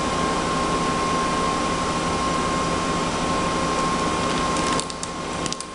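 Steady machine whirr with a constant whine, like a fan or blower running. Near the end it drops off, with a few short clicks.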